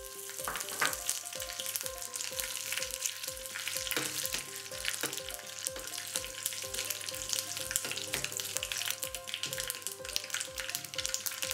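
Curry leaves and mustard seeds sizzling in hot oil in a small steel tempering pan, with many sharp pops and crackles as the tadka fries. A spoon stirs them in the pan.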